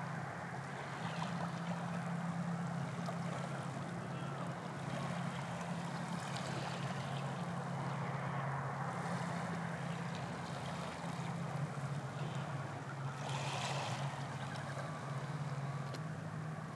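Steady low drone of fishing boat engines running, carried over the water, with an even wash of water noise.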